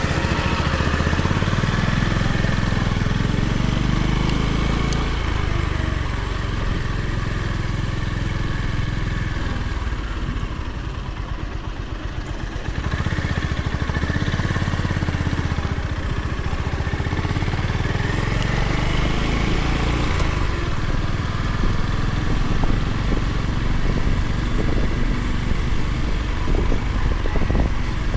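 Honda GB350's air-cooled single-cylinder engine running under way, with wind rushing past the microphone. The engine note eases off for a couple of seconds near the middle, then picks up again.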